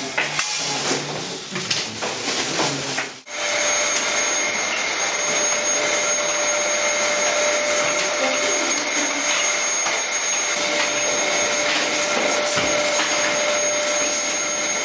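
Handling knocks and clatter for about three seconds, then a vacuum cleaner running steadily with a constant whine.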